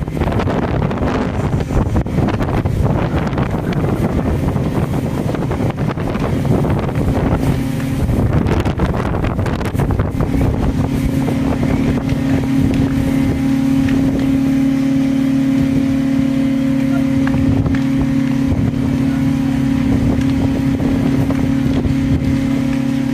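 A heavy engine, most likely the fire tender's, running steadily, with a drone that grows stronger and steadier about halfway through. A rough rushing noise lies over it, heaviest in the first half.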